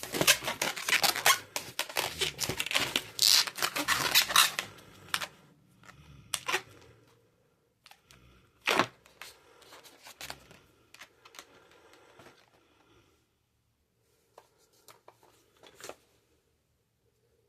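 Latex modelling balloons being handled and twisted, rubbing and squeaking against each other. The handling is busy for the first five seconds, then turns into occasional rubs and clicks, with one sharper snap a little before halfway.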